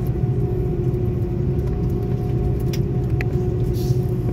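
Steady low rumble in the cabin of an Airbus A330-200 taxiing on its jet engines, with a steady hum over it and a few faint clicks about three seconds in.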